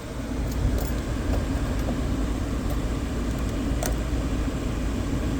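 Small car's engine idling steadily, heard from inside the cabin, with a few faint clicks of handling.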